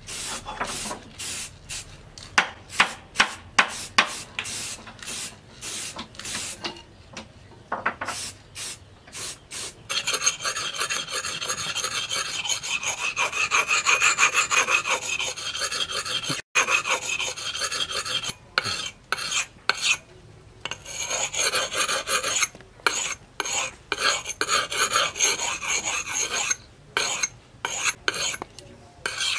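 Forged steel axe head being honed by hand on a sharpening stone: repeated rasping scrapes of steel on stone. The strokes come one by one at first, then in a fast, unbroken run in the middle.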